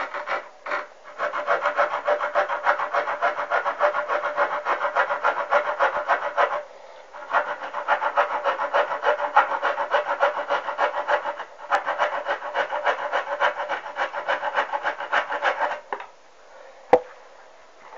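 The coarse-toothed folding saw blade of a Ganzo G301-H multitool cutting through wood with fast back-and-forth strokes, in three bouts with short pauses between them. A single sharp knock comes near the end.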